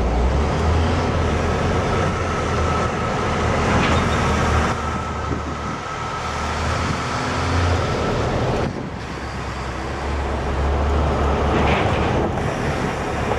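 Diesel freight locomotive rolling slowly past at close range: the engine's low rumble and the wheels running over the rails. A thin steady whine sounds from about a second in until nearly five seconds.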